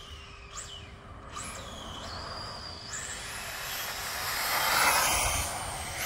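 Tamiya radio-controlled truck's motor whining, rising and falling in pitch as it speeds up and slows, with a rush of tyres on asphalt that is loudest about five seconds in as it passes close.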